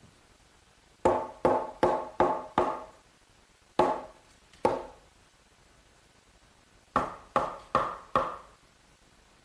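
Hard knocks on the oak frame of a Mission-style sofa, each ringing briefly, as the second side assembly is driven down onto its glued rail tenons. Five quick knocks come in a burst, then two single ones, then a run of four.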